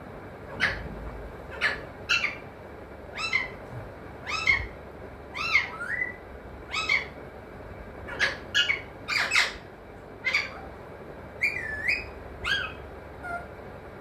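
Alexandrine parakeet giving a string of short, sharp squawks, about one or two a second, some gliding up and down in pitch.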